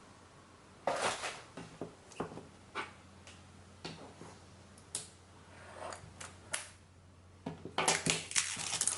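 Packaging being handled while a keyboard is unboxed: scattered knocks and scrapes, then continuous rustling of wrapping that starts about three-quarters of the way through.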